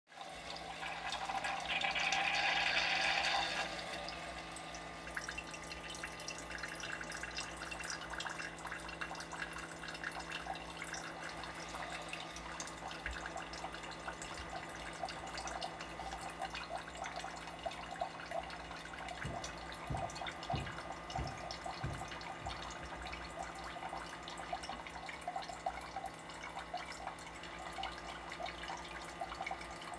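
Coffee maker flushing water: water running and dripping through the machine over a steady pump hum, with a louder rush of water about two seconds in and a few low thumps around twenty seconds in.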